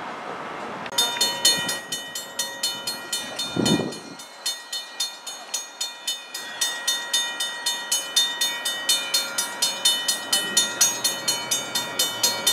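Railroad grade-crossing bell ringing in rapid, even strokes, several a second, warning that the crossing is activated for an approaching train. A brief low thump about four seconds in.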